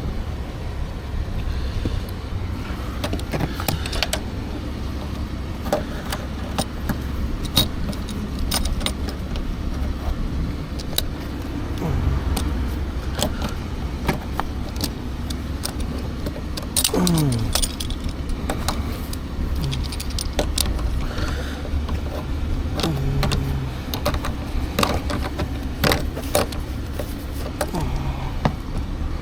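Metal jack tools clinking and rattling in a run of short, scattered clicks, over a steady low rumble of vehicles.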